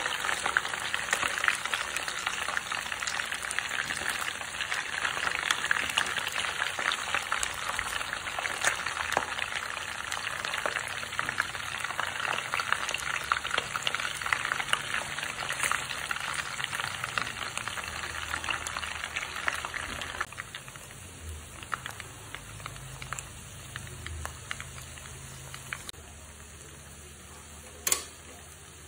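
Catfish pieces frying in shallow hot oil: a dense sizzle full of small crackling pops, which thins to a quieter, sparser sizzle about twenty seconds in. A single sharp click near the end.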